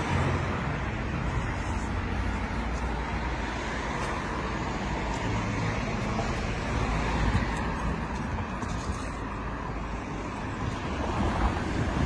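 Street traffic noise: cars driving past with a steady low engine and tyre rumble.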